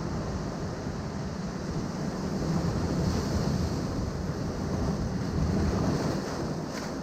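Ocean waves breaking and washing over rocks, a steady surf that swells louder twice, with wind rumbling on the microphone.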